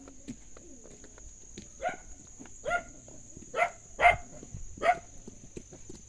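A dog barking five times, short barks between about half a second and a second apart, the loudest one near the middle.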